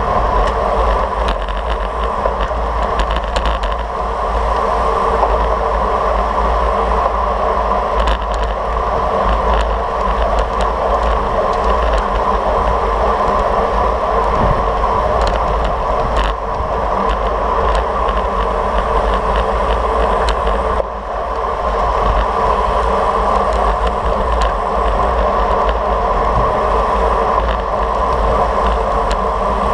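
Steady wind rush and road noise on the microphone of a camera mounted on a road bike riding at speed among other racers, with scattered clicks. The noise drops briefly about two-thirds of the way through.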